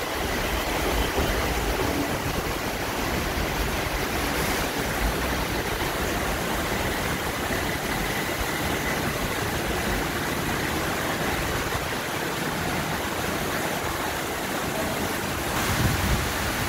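Heavy rain pouring down on an elevated railway station, mixed with a BTS Skytrain electric train rolling along the platform and slowing to a stop; a steady rushing noise with a faint high whine through the first half.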